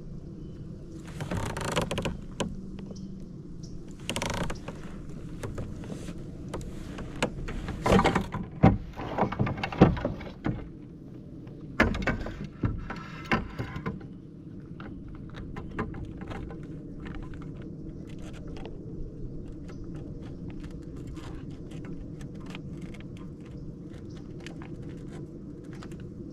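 Fishing reel being cranked, its gears whirring and clicking steadily. It is broken by several louder bursts of handling noise, the loudest about eight to ten seconds in.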